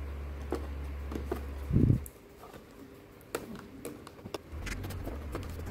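Light clicks and scrapes of fingers handling a cardboard box and picking at its round seal sticker, with a dull thump about two seconds in, over a steady low hum.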